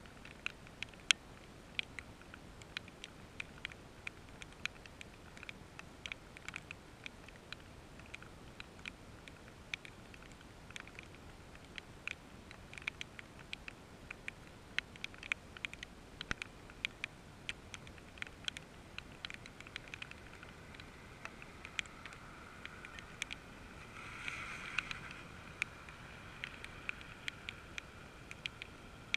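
Rain: raindrops ticking sharply and irregularly, a few a second, over a steady soft hiss. A soft swell of sound rises and fades about three quarters of the way through.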